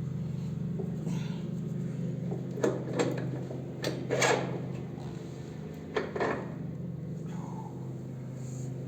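A few short metallic knocks and clatters, the motorcycle's front wheel, spacer and axle being handled into place, over a steady low hum.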